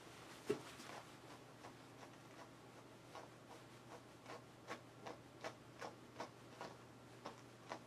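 Faint, quick strokes of a grooming brush working through a dog's ear fur. Each stroke is a short scratchy tick. They are sparse at first, then come about two to three a second in the second half.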